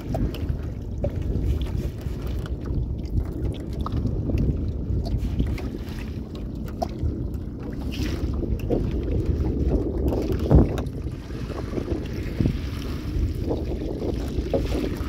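Wind buffeting the microphone as a steady low rumble, with scattered small knocks and one sharp knock about ten and a half seconds in.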